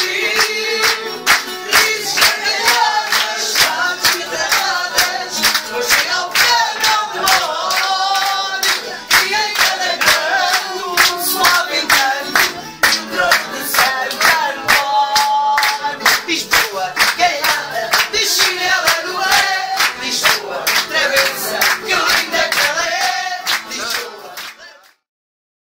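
A group of people singing along and clapping a steady beat to a Portuguese guitar and classical guitars. The sound cuts off suddenly near the end.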